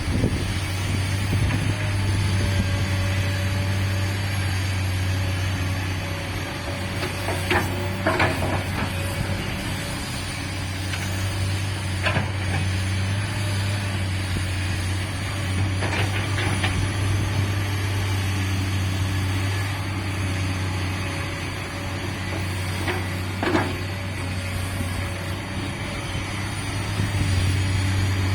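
Komatsu PC200-8 hydraulic excavator's diesel engine running under steady load, its drone swelling and easing slowly, with a few sharp knocks from the machine at work.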